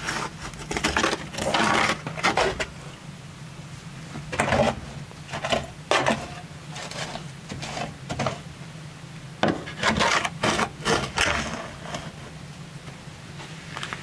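Split firewood being laid into a brick oven: logs scraping and knocking against the brick and against each other in short, irregular bursts.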